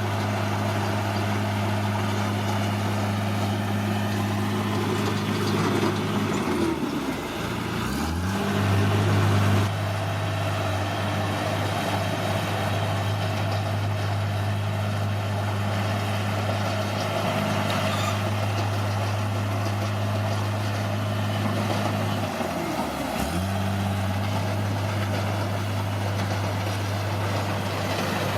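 Bulldozer's diesel engine running steadily, its pitch sagging sharply and climbing back twice, about a quarter of the way in and again about four-fifths of the way in.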